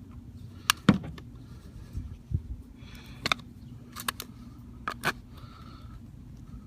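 Scattered sharp metallic clicks and taps, about seven over a few seconds, from small metal parts of a car door handle being worked by hand while a pin sleeve is forced into place.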